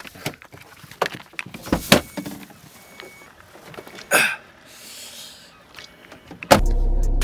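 Clicks, knocks and rustling of a handheld camera being picked up and carried out of a car past its open door, with one louder rustle about four seconds in. About six and a half seconds in, background music starts abruptly.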